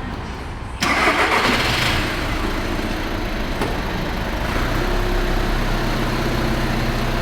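Car engine starting about a second in, loud at first, then settling into a steady idle.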